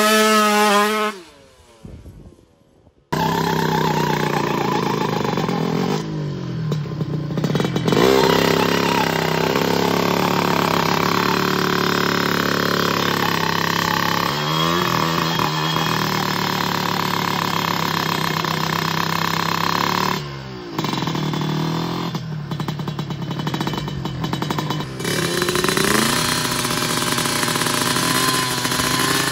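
Two-stroke engine of a Kawasaki Ninja-based drag bike held at high revs, with the throttle dropped and opened again several times so the pitch swoops down and climbs back up. There is a brief drop-out about a second in.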